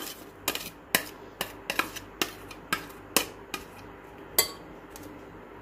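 Steel spoon tapping and scraping chopped onion out of a dish into a glass mixing bowl: a string of sharp clinks, about two a second, with one louder clink late on.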